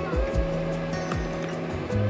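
Background music: an instrumental stretch of a song with held low notes and light regular ticks above them.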